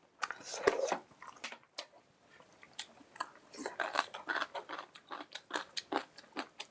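A person chewing and biting crisp food close to the microphone: an irregular run of short, sharp crunches and mouth clicks.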